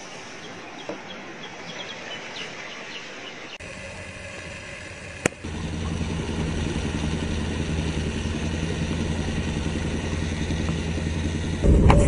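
Faint noise with a few light ticks, then a sharp click and a boat engine running steadily at idle, which grows louder near the end.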